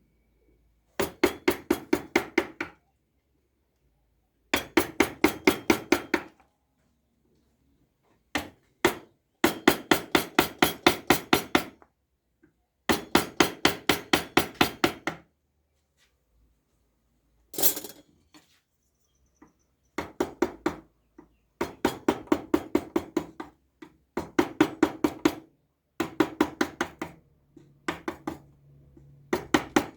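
Mallet tapping a carving chisel into wood in quick runs of about six strikes a second, each run lasting a second or two with short pauses between. About halfway there is one sharper, brighter knock.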